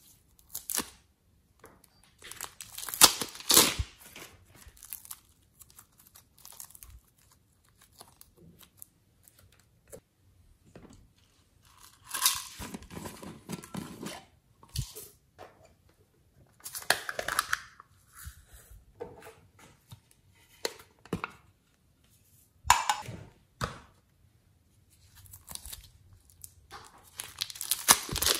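Hands crinkling and tearing the thin plastic wrapping of clay piping bags, in separate bursts with short pauses between them.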